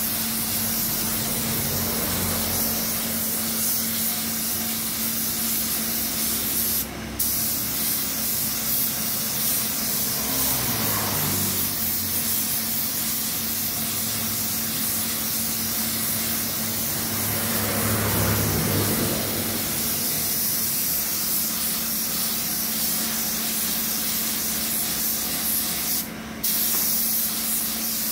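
Gravity-feed compressed-air paint spray gun spraying paint onto a car body panel: a steady hiss, cut off briefly twice as the trigger is let go. A steady low hum runs beneath it.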